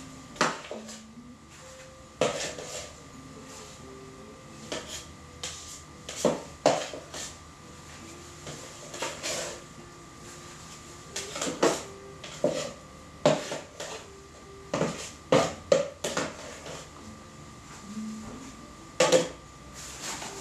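Spatula knocking and scraping against the tub and piping bag as whipped cream is scooped into the bag: irregular sharp taps and scrapes, a couple every second or so.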